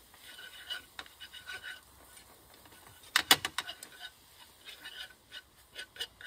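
A cooking utensil scraping and stirring in a skillet as flour is worked into butter, mushrooms and onions to make a roux, in short repeated strokes. About three seconds in, a burst of sharp clacks of the utensil against the pan is the loudest part.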